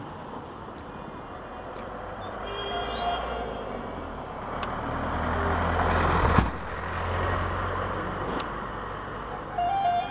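Road and engine noise of a moving vehicle, heard from on board, growing louder as a large vehicle passes close about six seconds in, then easing off.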